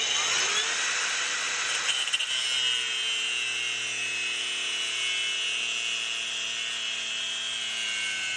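Senix cordless brushless angle grinder with a cut-off disc switched on, its whine rising over the first second, then running steadily while cutting through a car subframe bolt.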